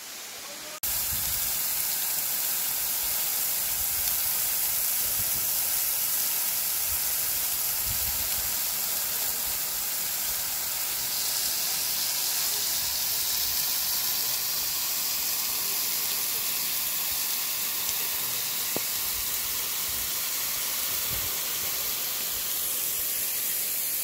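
Waterfall spray and falling water heard from right beneath the falls: a loud, steady hiss that cuts in abruptly about a second in, with a few low thuds under it.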